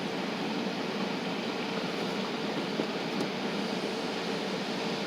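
Steady vehicle noise: an even hiss and rumble with a faint constant hum, without change.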